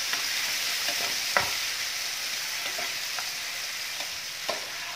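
Diced potatoes and freshly added chopped tomatoes sizzling in hot oil in a kadhai while a metal spatula stirs them, with a few sharp knocks of the spatula against the pan, the clearest about a second and a half in and near the end.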